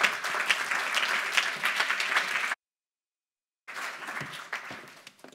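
Audience applauding, many hands clapping together. About halfway through the sound cuts out to dead silence for about a second, then the applause comes back and dies away.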